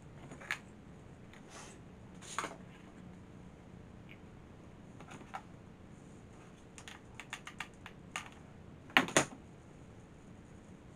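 Small clicks and taps from hands handling a tinsel-wrapped skewer craft tree: a few scattered clicks, a quick run of ticks about seven seconds in, and a louder double knock about nine seconds in.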